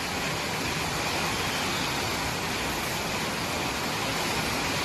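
Steady hiss of heavy rain pouring down, with no separate knocks or breaks.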